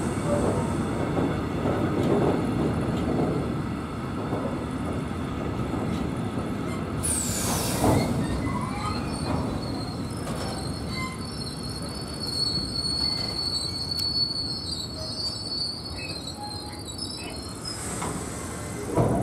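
Freight train of covered hopper wagons rolling past close by: a steady rumble and clatter of wheels on the rails, with a sharp knock about eight seconds in. A thin, high wheel squeal runs through most of the second half.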